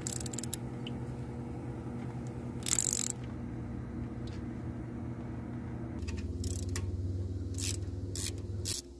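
Socket ratchet clicking in short runs as the half-inch water pump bolts are backed out, with light metallic clinks of the bolts being handled. A short scraping rattle comes about three seconds in, and a denser run of clicks near the end, over a steady low hum.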